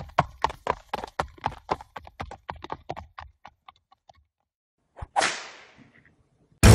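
Horse hoofbeats, about four to five a second, dying away over the first four seconds, then a single sharp whip crack about five seconds in.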